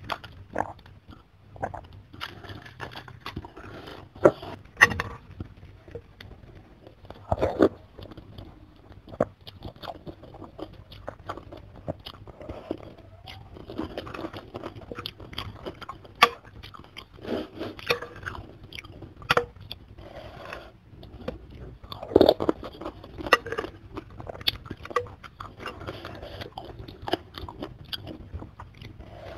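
Close-miked eating: chewing and crunching of chicken soup with rice vermicelli and crackers, with sharp clicks and scrapes of a metal spoon and fork against the bowl.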